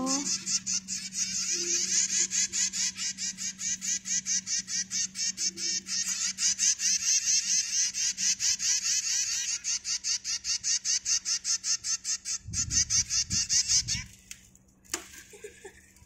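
A hand-fed nestling songbird begging for food, a rapid run of high chirps about five a second, while it is fed formula paste from a stick. The chirping stops about two seconds before the end.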